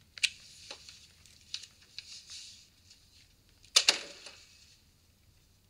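Soft rustling and small clicks, then an apartment door shutting with a short double clack about four seconds in.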